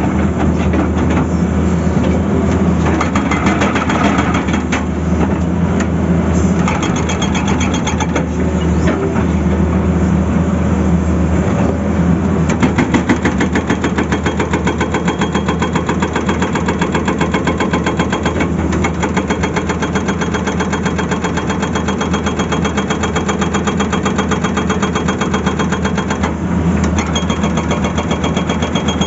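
Tata Hitachi excavator's diesel engine running steadily under load, with its hydraulic rock breaker hammering in rapid, even blows from about twelve seconds in until shortly before the end.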